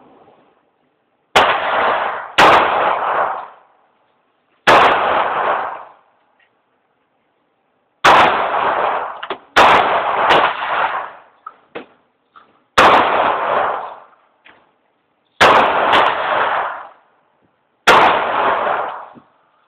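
Heckler & Koch USP 45 pistol firing .45 ACP, eight single shots spaced unevenly about one to three seconds apart, each followed by a long fading reverberation in an indoor shooting range.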